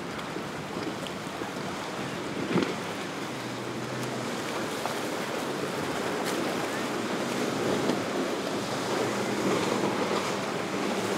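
Waves and boat wake washing, with wind buffeting the microphone and a distant boat engine humming faintly underneath, growing a little louder toward the end. A single short thump about two and a half seconds in.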